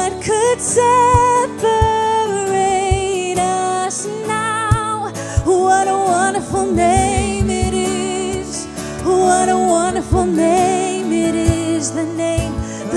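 A worship band plays a contemporary Christian worship song. A lead vocalist sings long held, wavering notes over sustained instruments and drums.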